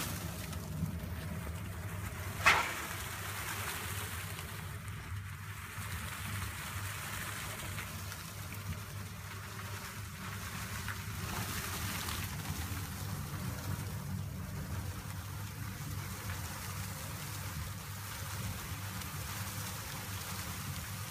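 Steady rushing of loose-fill insulation being blown through a hose, over a low machine hum, with one sharp knock about two and a half seconds in.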